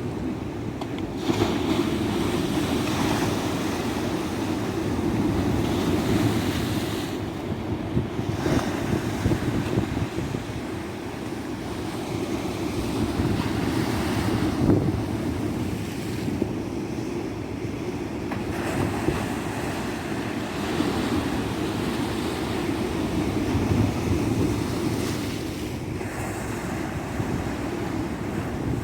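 Ocean surf on a tropical beach: a continuous rush of breaking and washing waves that swells and eases gently.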